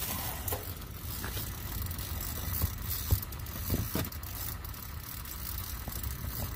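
Strong wind buffeting the microphone in a steady low rumble, with a few scattered sharp clicks and taps, the sharpest about three seconds in.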